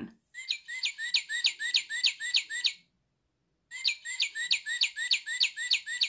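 A plush cardinal toy playing a recorded northern cardinal song through its small built-in speaker, realistic-sounding. It plays two phrases of rapid, evenly repeated down-slurred whistled notes, about five a second, with a pause of about a second between them.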